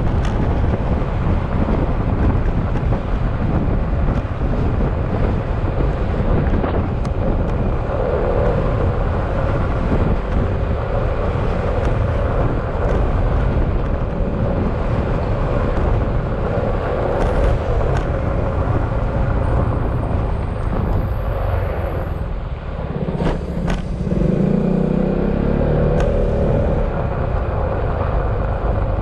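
Yamaha XMAX scooter's single-cylinder engine running at riding speed with a steady whine, over a constant rumble of tyres on brick pavers and wind. About three-quarters of the way through, the engine note drops and the sound dips briefly as the scooter slows, then picks up again, with a few knocks from the paving.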